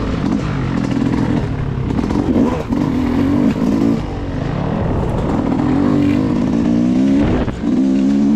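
Yamaha 250 dirt bike engine riding along, revving up and dropping back several times as the throttle opens and closes.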